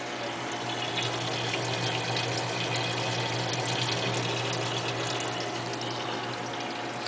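Aquarium sump running: water pouring and splashing into the sump, over a steady low pump hum.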